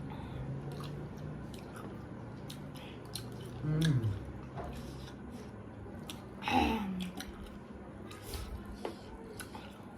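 Chewing and small wet mouth clicks of people eating chow mein noodles and vegetables, with two short voiced sounds that fall in pitch, about four and seven seconds in.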